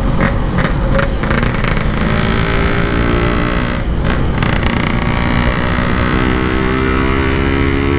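Yamaha RX-King's 135cc two-stroke single-cylinder engine running under way through an aftermarket side-mounted 'standart belek' exhaust. Its pitch holds steady for most of the stretch, with a few brief breaks in the first second and again about four seconds in.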